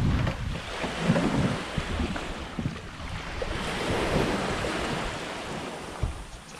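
Gusts of wind buffeting the microphone over sea water washing, easing off toward the end.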